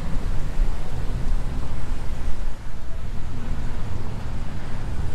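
Wind noise on the camera's microphone, an uneven low rumble, over cars passing on a wet street.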